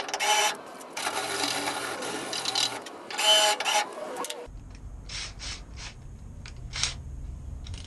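An electric drill with a spot weld cutter boring through the spot welds in sheet steel. It comes in a few bursts of grinding and whining over the first four seconds, then stops, leaving a low hum and a few short scrapes or taps.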